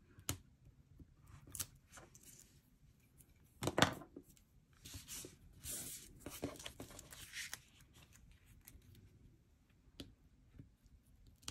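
Quiet paper-crafting handling noise: a pick tool scratching and prying foam adhesive dimensionals off their backing sheet, then cardstock layers sliding and being pressed together by hand. Scattered light clicks and taps, with one sharper tap about four seconds in and a few brief paper rustles.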